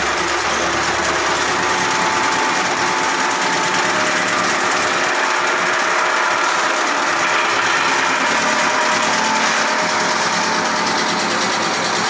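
Small belt-driven wood chipper, powered by an electric motor, running under load and chipping wood fed into its hopper: a loud, steady noise throughout.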